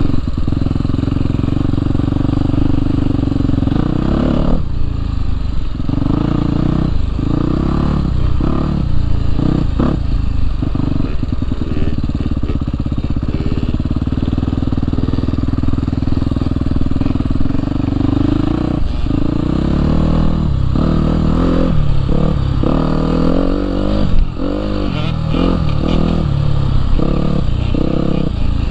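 Husqvarna dirt bike engine running under load as it is ridden, the throttle repeatedly closed and reopened. It holds steady through the middle and turns choppy in the second half, with a run of quick throttle blips.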